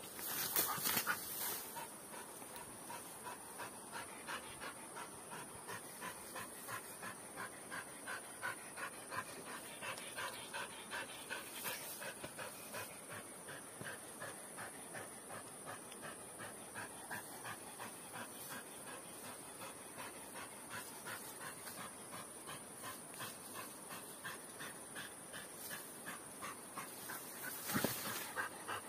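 A dog panting hard, in a quick, steady rhythm of short breaths. A brief rush of noise comes near the start and again near the end.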